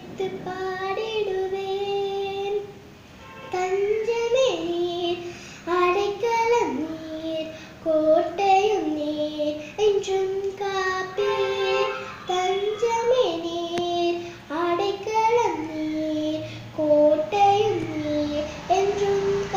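A young girl singing a Tamil Christian song solo, a single melody of held notes with slides between them and a short breath pause about three seconds in.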